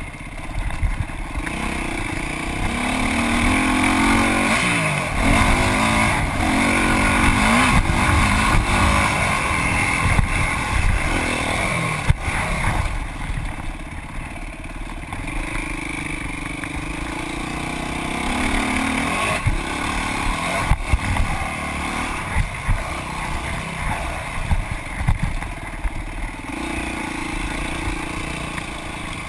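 Dirt bike engine heard from on the bike while racing, revving up and dropping back again and again with the throttle and gear changes, with a few sharp knocks.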